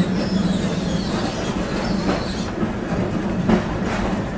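Dubbed-in sound effect of a tram rolling on rails: a steady rumble with a few clacks of wheels over rail joints and a faint high wheel squeal in the first second.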